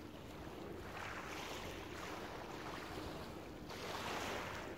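Small waves washing up and draining back over a shingle beach, swelling into a hiss about a second in and again near the end, with wind on the microphone.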